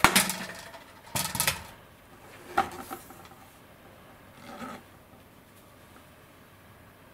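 Model-glider parts handled on a work mat: the tail boom knocking against other booms and the tail group. A sharp clatter comes at the start, the loudest sound, followed by a pair of knocks about a second later and two softer knocks and scrapes over the next few seconds.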